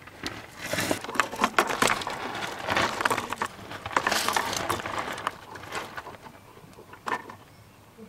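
Irregular metallic clicks, rattles and rustling from a floor jack being worked under the car to support a loose exhaust pipe, busiest in the first six seconds and dying away near the end.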